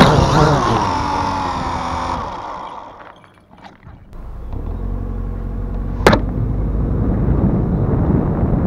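HolyStone HS300 toy drone's motors and propellers whining, the pitch falling as the rotors spin down after it comes down in the grass, dying away about three seconds in. After that a low steady rumble, with one sharp click about six seconds in.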